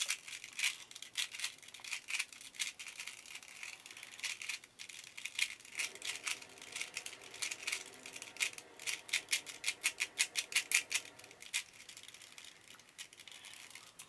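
Plastic 3x3 Rubik's cube being scrambled by hand: the layers are twisted in quick irregular runs of clicks and rattles, thickest in the middle of the stretch.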